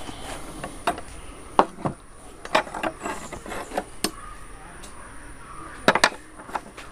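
Sharp metallic knocks and clinks, several in a row at uneven spacing, as steel rebar is bent by hand on a pinned bending plate, the bar striking the steel pins and plate.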